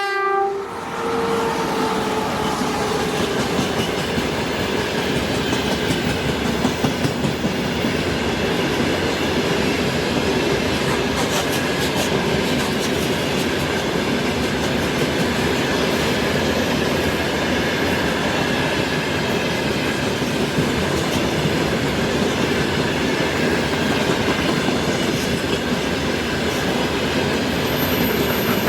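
A train passing close by, its wheels clattering steadily over the rails. The last note of its horn falls away in the first second.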